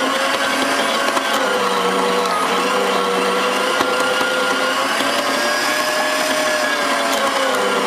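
TS110 electric meat grinder running while raw meat is fed into it and pushed down with the stomper: a steady motor whine whose pitch sags and recovers a few times as the auger takes the load.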